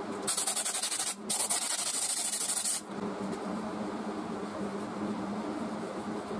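Two hissing blasts from a pressurized nozzle, the first just under a second long and the second about a second and a half, with a short break between. A steady machine hum runs underneath.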